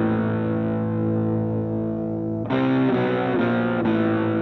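Distorted electric guitar through effects, holding a sustained chord that is struck again about two and a half seconds in, its notes shifting in a few quick steps just after each strike.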